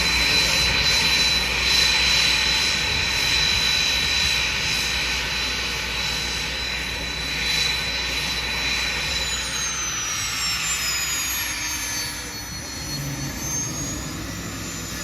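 Aircraft engine noise from a plane in flight, with a steady high whine that slowly fades. After about nine seconds a second whine falls in pitch.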